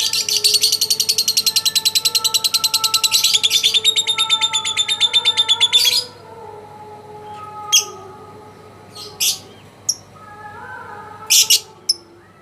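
Lovebird's long, rapid chattering trill (the 'ngekek' prized in song contests): about six seconds of quick, evenly repeated high chirps that stop abruptly, followed by a few separate short chirps.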